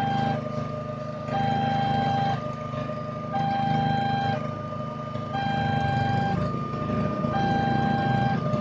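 Railway level-crossing warning alarm, an electronic two-tone chime alternating between a lower and a higher tone about once a second, signalling an approaching train as the barriers come down. A low engine rumble runs underneath and grows louder near the end.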